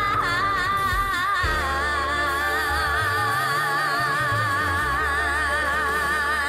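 A singer holding one long sung note with steady vibrato, over low accompaniment notes that change a few times.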